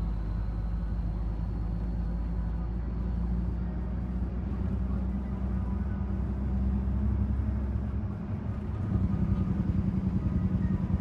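Heavy diesel dump-truck engine heard from inside the cab as the truck drives along, a steady deep drone. About eight seconds in, the deepest rumble drops away and the engine note turns louder and rougher.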